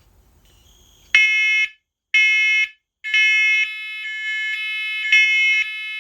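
Several interlinked First Alert Onelink smoke and carbon monoxide alarms sounding together in test mode: loud, shrill pulsed beeps starting about a second in, roughly one a second. The units are slightly out of step, so their beeps overlap and run together near the middle.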